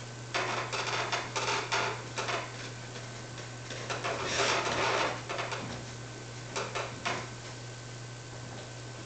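Sheets, duvet and pillow rustling in several bursts as a person tosses and turns on a bed and plumps the pillow, the longest burst about halfway through, over a steady low hum.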